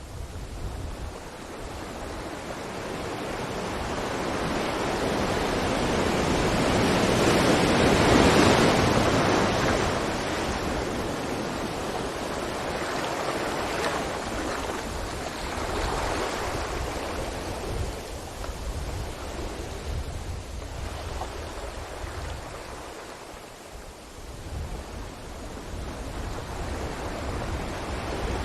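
Ocean waves washing onto a beach. One wave builds to a loud break about eight seconds in and slowly drains away, smaller surges follow, and the next swell builds near the end.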